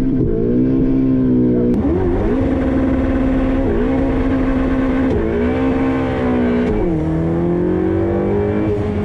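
Ferrari 488 Pista's twin-turbo V8 accelerating hard through the gears. Its pitch climbs, then drops sharply at each quick upshift, about every second and a half, five times in all.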